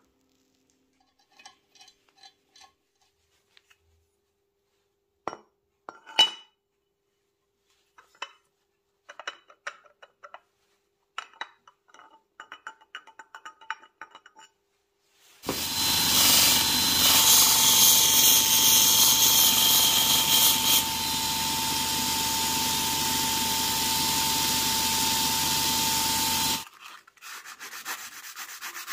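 Scattered light clinks of metal engine parts being handled. About fifteen seconds in, a small power tool starts and runs for about eleven seconds with a steady whine over a harsh abrasive rubbing noise, then cuts off suddenly. A quieter hand-rubbing follows near the end.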